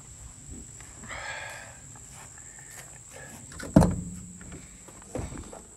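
Footsteps in grass beside a van, with a brief rustle about a second in, then a loud thump just under four seconds in and a smaller thump about a second and a half later.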